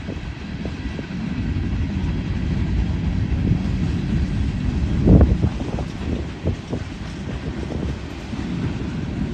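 Freight train cars, mostly tank cars, rolling past: a steady low rumble of steel wheels on rail with scattered clacks and knocks, the loudest about five seconds in.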